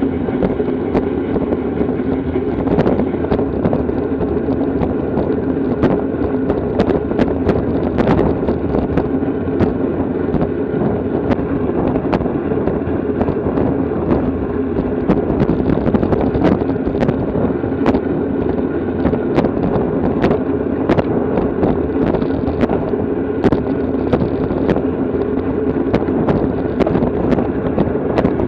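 Steady wind rushing over the microphone of a camera on a moving bicycle, with frequent sharp clicks and rattles through it.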